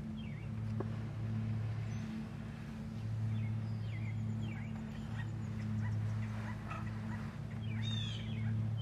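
Wild turkeys calling, short falling notes here and there, with a louder burst of rapid calling about eight seconds in. A steady low hum runs underneath.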